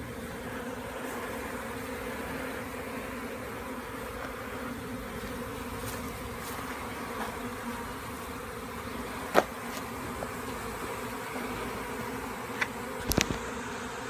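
A honey bee swarm buzzing steadily, the hum of many bees flying around the hive box. A sharp tap sounds once about nine seconds in, and a few more near the end.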